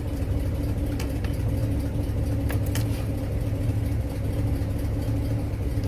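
Old car's engine idling steadily, a low even rumble with a constant hum. A couple of faint clicks are heard about midway.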